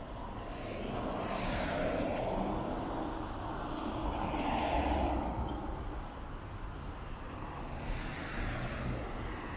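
Road traffic: vehicles passing, the noise of engines and tyres swelling to a peak about halfway through, fading, then building again near the end.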